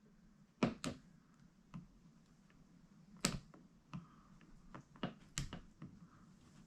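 Sharp, irregular clicks and taps of a knife blade working against the plastic underside of a laptop as a glued strip is pried up, about ten clicks over several seconds, the loudest about three and five seconds in.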